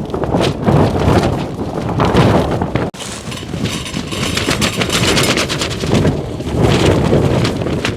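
Extreme wind buffeting a tunnel tent, the fabric flapping and snapping in rapid cracks over a heavy rumble of wind on the microphone.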